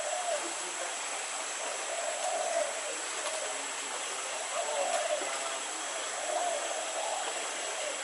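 Steady outdoor forest ambience: an even hiss with a thin, steady high-pitched whine over it. Faint, short mid-pitched sounds come and go every second or two.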